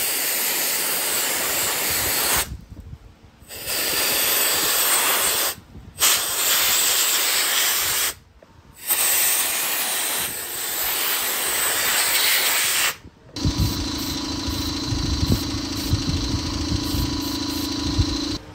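Handheld air sandblast gun hissing in four bursts of a few seconds each, with short breaks, lightly blasting a masked plastic grill at reduced pressure. About thirteen seconds in, the hiss gives way to a steady hum with a low rumble.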